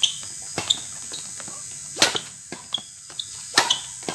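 Badminton rally: four sharp racket-on-shuttlecock hits, roughly one to one and a half seconds apart, with short high shoe squeaks on the court surface between them.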